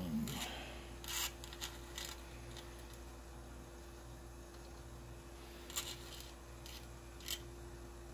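Steel tweezers clicking and scraping as tiny eight-pin EEPROM chips are picked up and set down on small circuit boards: a handful of faint, sharp clicks, bunched in the first two seconds and then single ones near the end, over a steady low hum.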